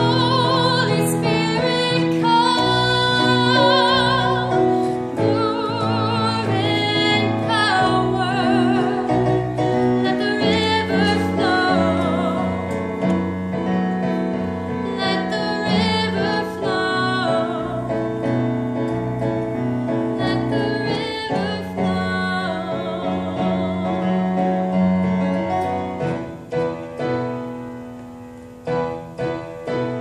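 Solo female voice singing with a wide vibrato over piano accompaniment. Near the end the voice stops and the piano plays a few closing chords that die away.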